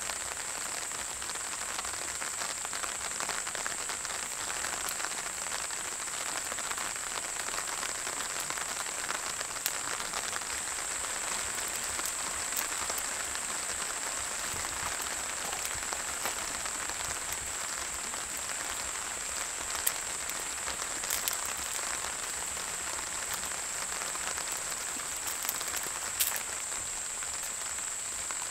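Steady rain falling, an even hiss with a brighter high-pitched edge, broken by a few brief sharp pops.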